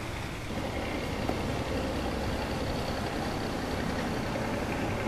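Small boat's motor running steadily, a low engine hum that grows a little louder about half a second in.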